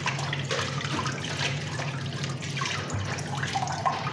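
Small clinks and clatter of plates and cutlery over a steady hiss and low hum.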